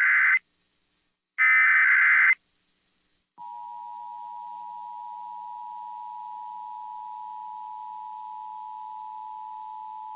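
Emergency Alert System test: the last two of the three SAME digital header bursts, each about a second long and a second apart. From about three seconds in comes the steady two-tone EAS attention signal.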